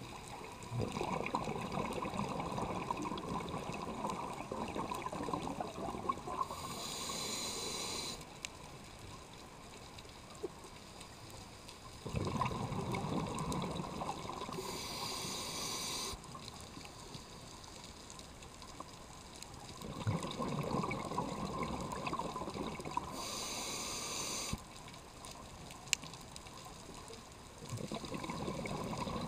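Scuba diver breathing through a regulator underwater: several-second stretches of exhaled bubbles gurgling and rumbling, each ending in a short high hiss from the regulator, repeating about every eight seconds with quiet gaps between.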